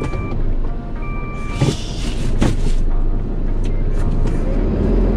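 A large truck's reversing alarm beeping from inside the cab, one beep about every 1.4 seconds, over the steady low running of the engine. The beeps stop just under two seconds in, and a short burst of hiss follows.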